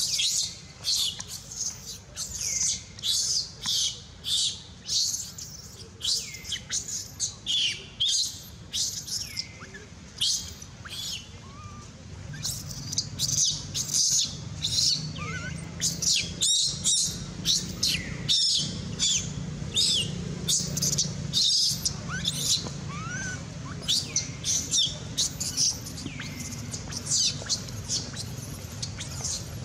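Baby macaque screaming over and over, shrill cries that fall in pitch, about two a second: the distress cries of an infant whose mother refuses to let it nurse. A low steady hum joins underneath partway through.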